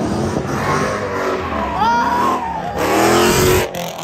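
Car engines revving and accelerating hard past the roadside, the pitch sweeping up and down. The loudest burst comes about three seconds in and cuts off abruptly.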